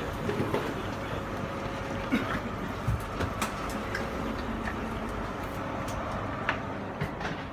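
Steady hum inside a stationary electric train carriage at the platform, with scattered knocks and clicks from passengers getting off with their bags.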